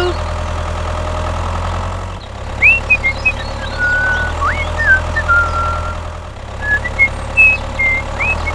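Tractor engine idling with a steady low hum. From about two and a half seconds in, short high chirps and whistles sound over it, each note brief and some gliding up.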